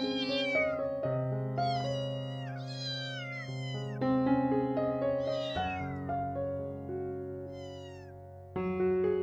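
Kitten meowing repeatedly, about five high calls that slide down in pitch, over background piano music.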